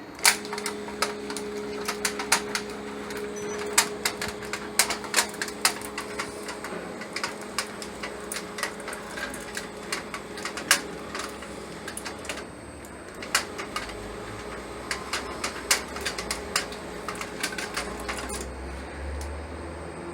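Hybrid stepper-servo motor driving a belt-and-pulley linear actuator axis: a steady two-note whine with frequent irregular clicks and ticks. The whine stops near the end.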